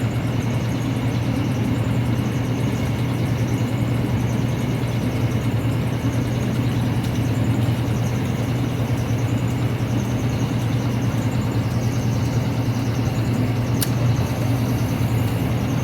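York 3-ton rooftop air-conditioning unit running steadily after its condenser fan motor was replaced: a constant mechanical hum with a strong low drone.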